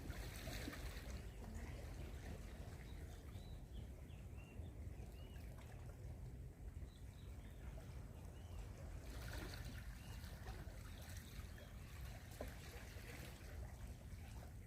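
Faint water splashing and trickling, swelling twice, over a steady low rumble. A few faint, short, high chirps come in the middle.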